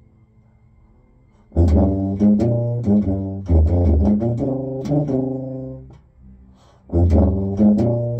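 Tuba played solo: after a short rest, a phrase of short, separate notes begins about one and a half seconds in. A second phrase follows after a pause of about a second near the end.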